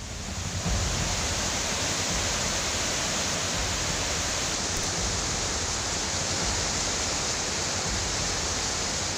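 Fast floodwater rushing and churning in a steady, continuous torrent, like a waterfall. It swells up in the first second.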